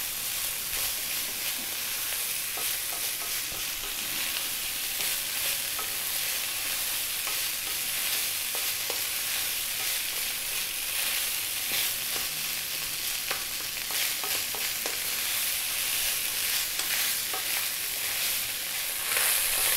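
Cold cooked basmati rice frying in mustard oil in a wok on high heat: a steady high sizzle, with the light scrape and tap of a wooden spatula stirring the rice now and then.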